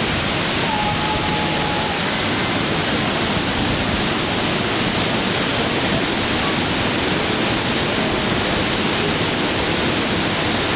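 Hotsawa Falls, a waterfall, giving a steady, unbroken rush of falling water.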